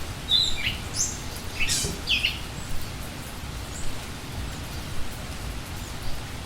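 Steady rain with birds giving a few short chirps in the first couple of seconds.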